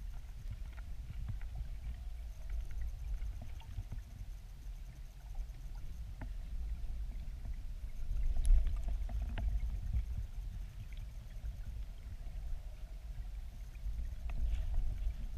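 Muffled low rumble of river current near a weir, heard underwater, with faint scattered clicks and a brief louder surge about eight and a half seconds in.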